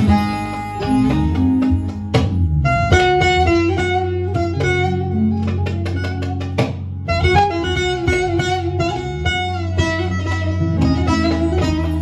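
Bağlama (Turkish long-necked saz) played with fast plucked runs over a steady low bass accompaniment, the music breaking off briefly twice.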